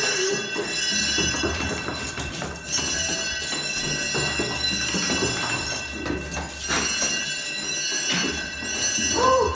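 Building fire alarm going off and on without a break, a set of high, steady, piercing tones, with knocks and movement underneath.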